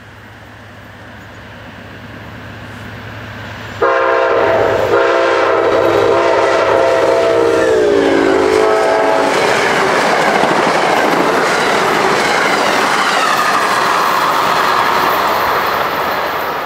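Amtrak passenger train passing at speed, its rumble growing as it approaches. About four seconds in, the locomotive's multi-chime horn sounds a short blast, then a longer one whose pitch drops as the locomotive goes by. The rush and clickety-clack of the coaches follow and fade near the end.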